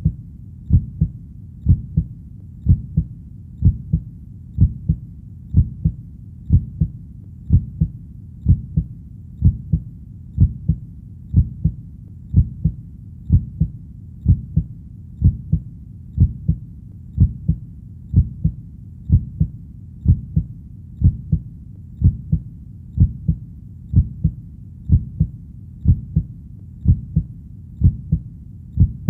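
Heartbeat sound: a slow, steady double beat, lub-dub, about once a second, deep and low, with a faint low hum between the beats.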